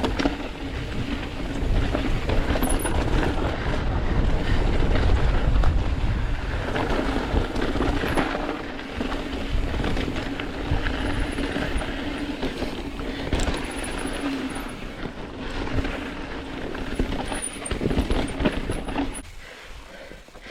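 Mountain bike descending a rough, rocky trail: wind buffeting the microphone with a heavy low rumble, tyres rolling over rock and gravel, and the bike rattling, over a steady hum. The noise drops off about a second before the end as the bike slows.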